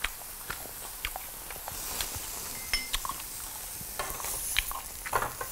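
Pork chops sizzling on a tabletop grill plate, with scattered clicks and taps of metal tongs and dishes. The sizzle grows louder near the end as the tongs move the meat.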